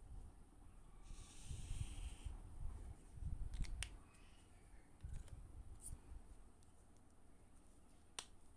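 Faint handling of stationery and packaging: a short rustle about a second in, low bumps, and a few sharp clicks, one near the end.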